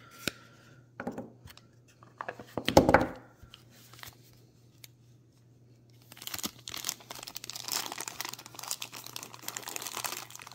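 A few light clicks and a single louder thump about three seconds in, then from about six seconds in a dense, continuous crinkling of a thin clear plastic bag being handled and torn open around a small toy figure.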